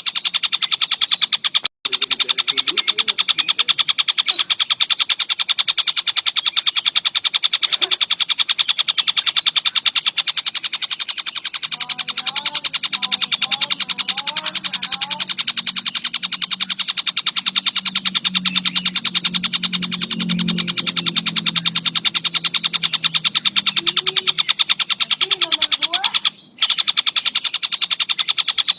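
Collared kingfisher (tengkek buto) calling nonstop in a rapid, even chatter of sharp repeated notes, broken only by two brief gaps, about two seconds in and near the end.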